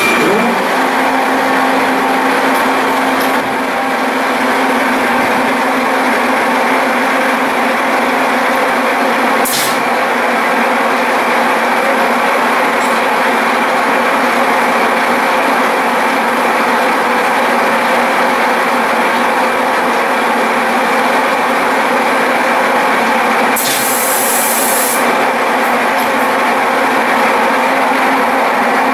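Large Lehmann engine lathe running steadily under power, its headstock drive giving a steady hum with a whine over it, while a single-point tool cuts a thread on a large steel tube. A short hiss sounds about ten seconds in, and a longer one of a second or so comes about three quarters of the way through.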